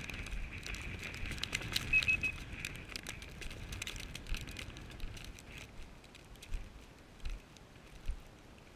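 Snow-covered dry grass and brush rustling and crackling close to the microphone as the camera moves through it, with scattered clicks and small knocks; it quietens in the second half, leaving a few isolated thumps.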